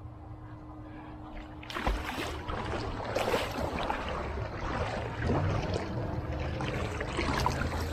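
Swimming-pool water splashing and sloshing, starting with a sudden thump about two seconds in and continuing irregularly after it.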